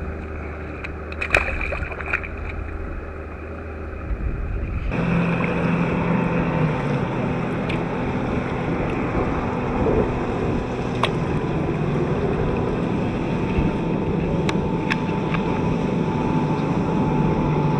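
Motorboat engines droning steadily across open water, with wind on the microphone and waves. This comes in suddenly about five seconds in, after a quieter stretch holding a few sharp clicks and knocks of gear on a kayak.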